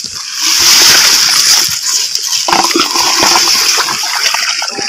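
Water rushing and splashing as a PVC-pipe eel trap is handled in shallow swamp water, with dry grass rustling under the hand. The sound swells about half a second in and stays loud and steady.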